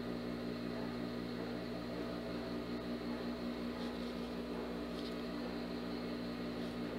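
Steady electric motor hum with a few fixed low tones, unchanging throughout, with faint soft rustles of fabric and thread being handled about four and five seconds in.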